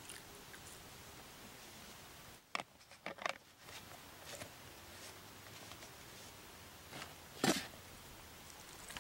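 Olive-green plastic canteen being handled: a few light clicks and knocks between about two and a half and three and a half seconds in, then one louder knock about seven and a half seconds in as it is set down, over a steady faint hiss.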